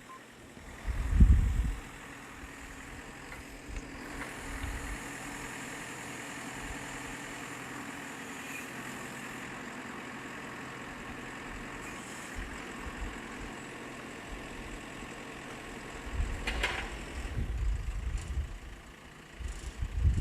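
Backhoe loader's diesel engine running steadily while the machine works, with a low thump about a second in. Near the end the engine gets louder and rougher.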